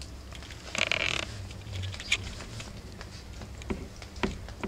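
Four-week-old rough collie puppies playing: short puppy squeals and grunts, the loudest about a second in, among scattered scratches and rustles of newspaper under their paws.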